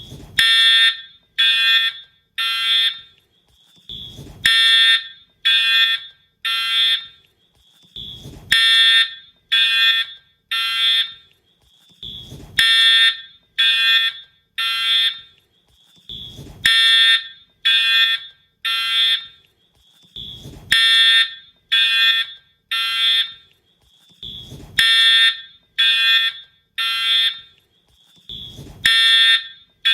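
Wheelock horn/strobe fire alarm horn sounding in the temporal-three pattern, the standard evacuation signal: three harsh blasts about a second apart, then a pause, repeating every four seconds. A soft thump comes just before each group of blasts.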